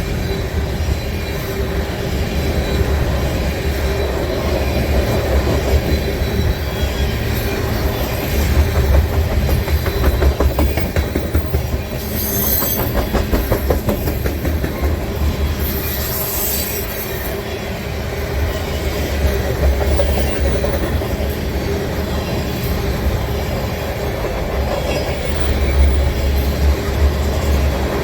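Freight cars of a long mixed manifest train rolling past: a steady rumble with the clickety-clack of wheels over rail joints, and brief high-pitched wheel squeals about twelve and sixteen seconds in.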